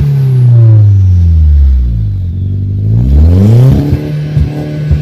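VW Polo GTI's turbocharged four-cylinder engine being revved while parked, heard at its twin-tip tailpipes through a full downpipe and exhaust. The revs fall back over about two seconds, then rise sharply about three seconds in and are held high, with a few short stutters near the end.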